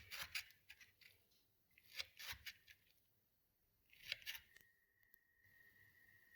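Three short bursts of crisp snipping and crackling about two seconds apart, from close-up food preparation, then a faint steady high tone that starts just after the third burst.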